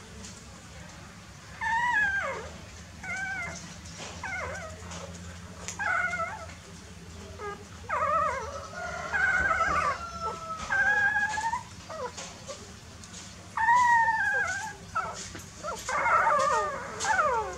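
Young puppies whining and whimpering: repeated short, high, wavering cries, some falling in pitch, with several overlapping near the end.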